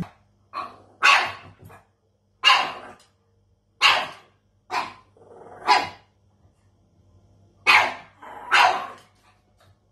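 Dog giving short, sharp play barks, about eight in all, single or in quick pairs with gaps of up to two seconds between them.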